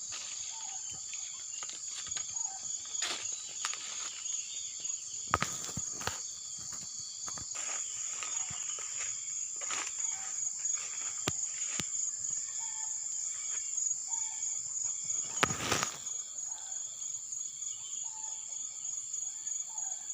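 Steady high-pitched drone of insects such as crickets or cicadas, with short chirps repeating every second or two and scattered sharp clicks.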